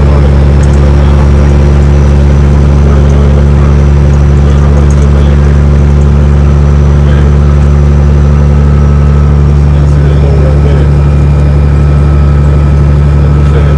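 Kenworth W900 semi truck's diesel engine running steadily while cruising on the highway, heard from inside the cab as a loud, steady low drone.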